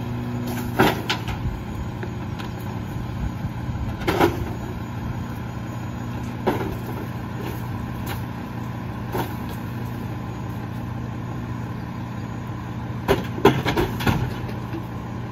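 Heil 5000 rear-loader garbage truck idling steadily while bulky junk is thrown into its rear hopper, with sharp clanks and thuds about a second in, around four seconds in, and a cluster of bangs near the end.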